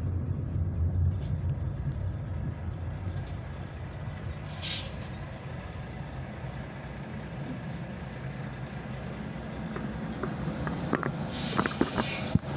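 Low rumble of a car creeping forward and idling behind a box truck, with two short air-brake hisses from the truck, about four and a half seconds and eleven seconds in. A few sharp clicks come near the end.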